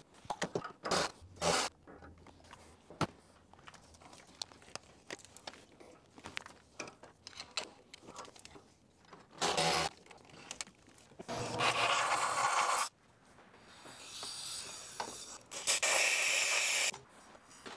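Small clicks and scrapes of tools and parts, then four hissing blasts of compressed air from a blow gun clearing carbon out of the EGR cooler passage: a short one about halfway through, two longer ones later, and a fainter one between them.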